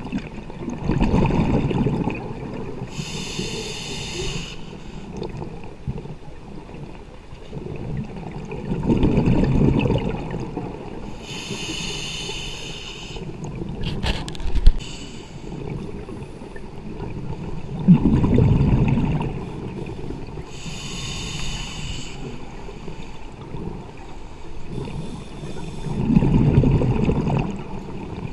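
Scuba diver breathing through a regulator underwater: a slow cycle about every eight or nine seconds, a low bubbling rush of exhaled air followed a couple of seconds later by the hiss of an inhalation. A single sharp click about halfway through.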